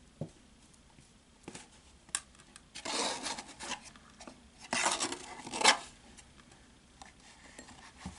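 Plastic spoon scraping and scooping baking soda out of a cardboard box, in two rasping strokes, with a few light clicks of the spoon and box.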